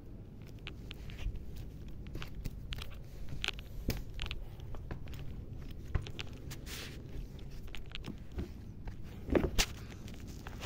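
Handling noise and movement: scattered soft taps, scuffs and rustles as a handheld phone is moved about, with two louder knocks about nine and a half seconds in.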